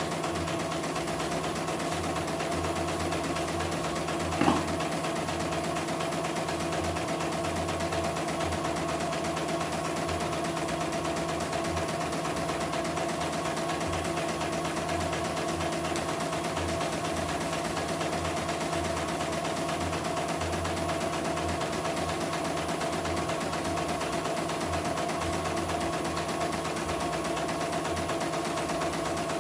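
CNY E900 computerized embroidery machine stitching a design in steady operation, running smoothly without trouble. A single sharp click sounds about four and a half seconds in.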